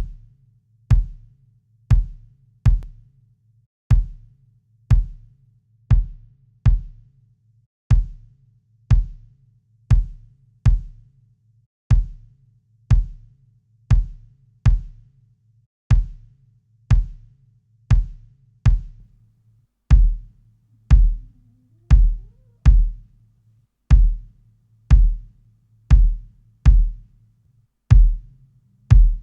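A recorded acoustic kick drum played back in a looping pattern of single and paired hits, about one a second, with a faint low hum between the hits. About two-thirds of the way in, the hits turn louder and fuller in the low end as a sub kick is layered under the kick body.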